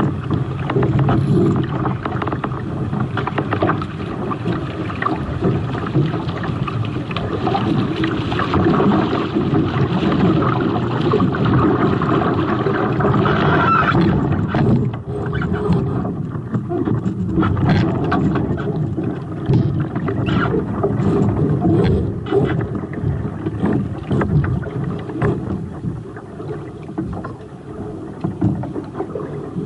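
Wind buffeting the microphone and water rushing along the hulls of a Hobie 18 catamaran under sail. About halfway through, as the boat slows, the rush eases into patchier splashing with scattered knocks.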